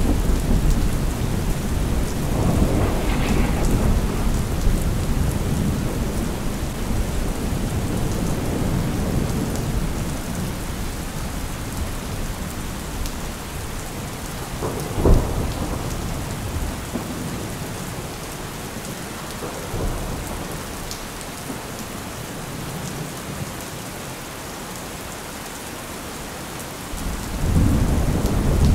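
Thunderstorm with steady rain. A long roll of thunder fades away over the first ten seconds or so. A sudden sharp crack of thunder comes about halfway through, and a fresh rumble builds near the end.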